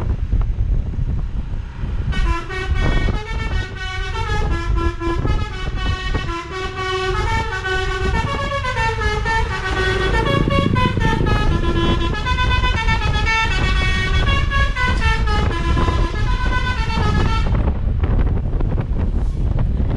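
Basuri telolet multi-tone bus horn playing a tune of quick stepping notes, starting about two seconds in and stopping a couple of seconds before the end, over a steady low rumble.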